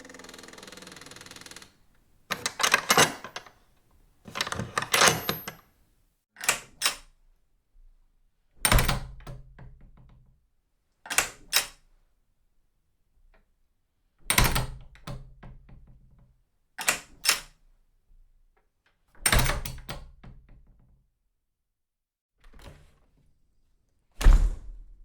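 A wooden farm door's metal latch being worked: a series of separate clacks and thuds, one every two to three seconds, several with a low, heavy thump as the door hits its frame. A steady creak fades out just before the first of them. Near the end a door shuts with one loud thud.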